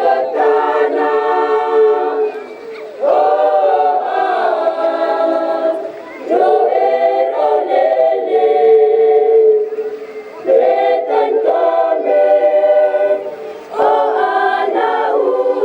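A choir singing unaccompanied in held phrases of three to four seconds, each new phrase entering together after a short breath.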